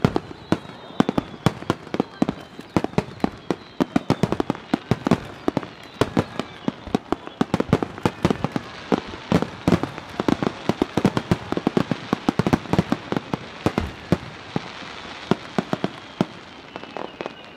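Starmine fireworks barrage: shells launched in rapid succession from the water and the riverbank, bursting with a dense, unbroken string of sharp bangs and crackles, several a second, with a few faint falling whistles early on.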